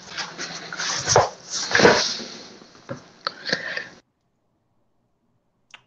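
Irregular bursts of background noise picked up by a video-call participant's open microphone, cutting off abruptly to dead silence about four seconds in, with one faint click near the end.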